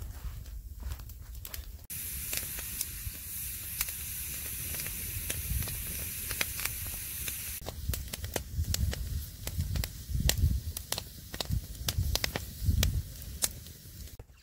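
Wood campfire crackling with many sharp pops as a foil-wrapped fish cooks on the burning sticks. From about two seconds in, a steady high sizzling hiss sets in and cuts off suddenly a little past halfway. Some low rumbling follows near the end.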